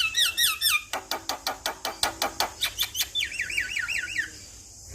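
Male Javan myna singing: a quick run of repeated falling whistles, then a rapid series of clicking notes, then another run of falling whistles that stops near the end.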